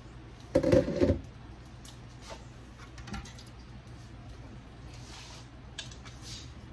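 Metal cookware clanging briefly about half a second in, then a few light taps and clicks of a metal spoon in a cooking pan.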